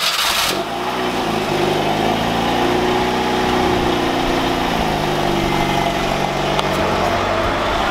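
A 1985 Pontiac Fiero's engine running steadily just after starting, its note rising a little after the first second and falling back lower about five seconds in.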